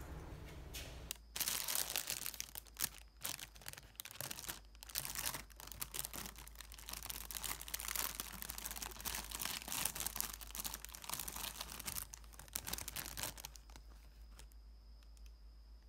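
Thin clear plastic bakery bag crinkling and rustling as hands handle and pull apart cream-cheese buns inside it, from about a second in until near the end.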